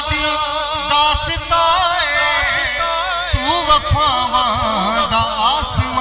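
Male voice singing a Punjabi devotional manqabat into a microphone: long, drawn-out melismatic notes with a wide wavering vibrato and no clear words. A few sharp percussive hits sound underneath.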